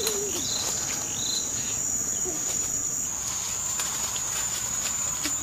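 Insects droning: one steady high-pitched note, with faint scattered ticks and a few short chirps in the first second or so.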